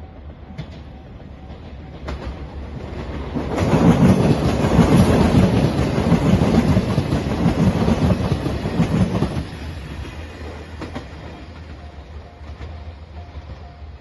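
Nanpu limited express diesel train passing at speed: a loud rush of engine and wheel noise with a rhythmic clatter of wheels over rail joints, building about three seconds in and falling away near ten seconds. A level-crossing bell dings faintly at the start and near the end.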